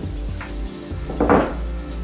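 Background music with a steady beat. A little over a second in, a short wooden knock and scrape as a solid ash board is handled on the workbench.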